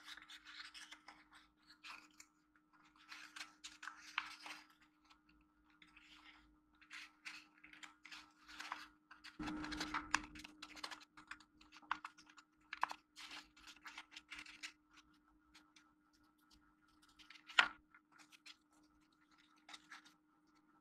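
Origami paper being folded and creased by hand: irregular crinkling and rustling with small crackles, a dull knock about nine seconds in, and one sharp click a few seconds before the end. A faint steady hum runs underneath.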